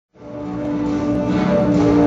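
Music fading in from silence, with held notes swelling in level.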